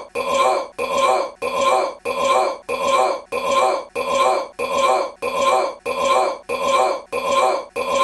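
A man's short belch looped over and over, the same belch repeating about three times every two seconds with a brief gap between each.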